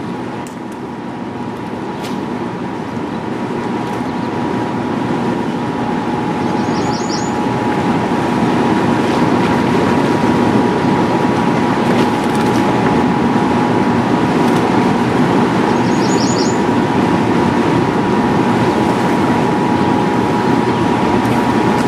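Steady rush of fast river water below a dam, growing louder over the first several seconds and then holding level, with a faint steady hum underneath.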